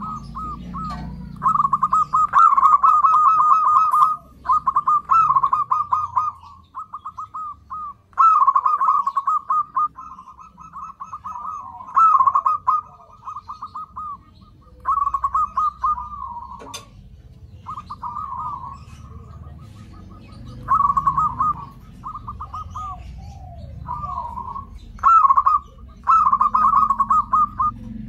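Zebra dove (perkutut) calling in repeated phrases of fast, trilled cooing, each one to two seconds long with short pauses between.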